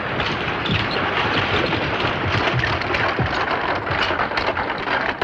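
Hoofbeats of a ridden horse coming in over a dirt street: a dense, continuous clatter of irregular hoof strikes.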